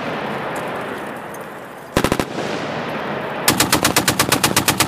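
M2 Browning .50-calibre heavy machine gun firing: a short burst of about four shots about two seconds in, then a longer burst of about ten shots a second near the end. Each burst is followed by its report echoing away.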